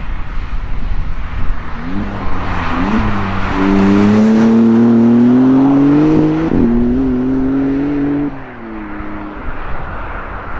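Maserati MC20 Cielo's twin-turbo V6 accelerating hard through the gears as the car drives past. The engine note climbs and jumps at each gear change, the biggest change about six and a half seconds in. After about eight seconds it drops away, leaving road and wind noise.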